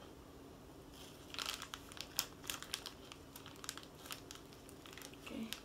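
Plastic packaging of a Kracie Popin' Cookin' candy kit crinkling under the fingers, a quick run of crackles starting about a second in.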